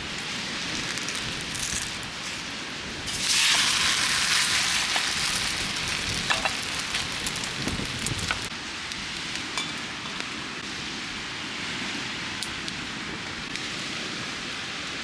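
Food sizzling in a hot pan: a steady hiss that jumps louder about three seconds in, as food or liquid meets the hot surface, with a few crackles, then eases back after several seconds.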